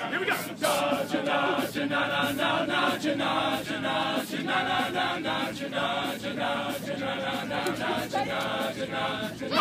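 Male a cappella group singing the song's intro in close harmony, a chant of short syllables repeated to a steady beat, with sharp percussive accents on the beats.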